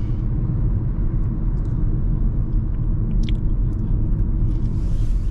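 Steady road and engine rumble inside the cabin of a Mahindra XUV 3XO cruising at about 50 km/h, with a few faint ticks.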